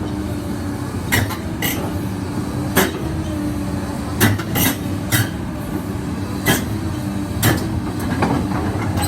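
Komatsu PC220-7 excavator's six-cylinder diesel engine running steadily, with about nine sharp metal clanks at irregular intervals of roughly half a second to a second and a half.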